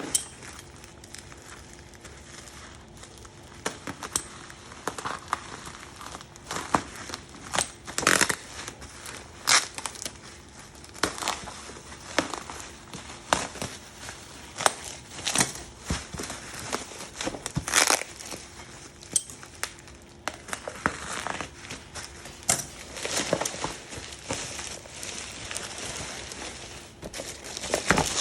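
Packaging being unwrapped by hand: plastic and paper crinkling and tearing in short, irregular rustling bursts.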